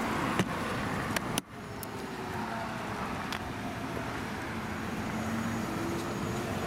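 Steady road traffic noise from passing cars and trucks, with a couple of sharp clicks in the first second or so.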